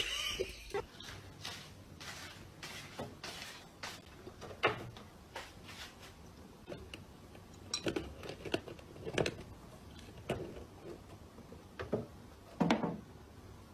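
Irregular knocks and clatters, scattered and uneven, with the loudest coming near the end.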